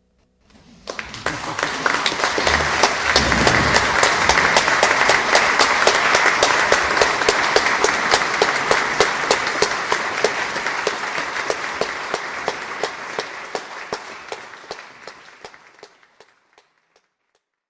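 Audience applauding. The applause begins about a second in, then fades and dies out near the end.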